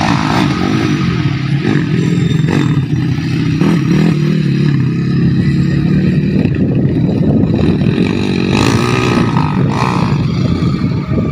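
Motocross motorcycles running and revving, the engine pitch rising and falling as the throttle opens and closes.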